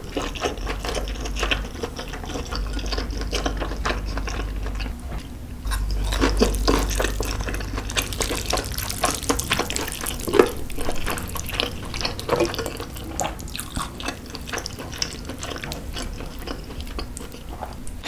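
Close-miked wet chewing and slurping of Buldak spicy stir-fried noodles with melted corn cheese, full of small irregular mouth clicks, with the odd click of metal chopsticks.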